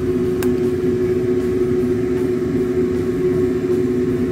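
A steady mechanical hum: a low drone with an unchanging mid-pitched tone, like a running motor. There is one sharp click about half a second in.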